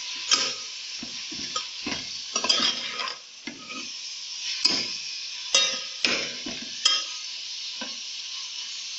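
Minced meat (keema) with ginger-garlic paste sizzling in hot oil in a metal pot while a metal spatula stirs it, scraping and clinking against the pot several times at irregular intervals.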